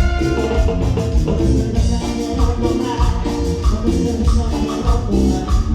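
A band playing Latin dance music without vocals, with a steady beat and held melodic notes over the rhythm.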